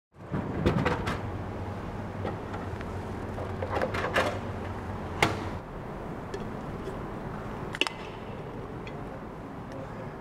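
Steady room hum with a handful of sharp clicks and knocks as a drink can is taken from a vending machine and opened.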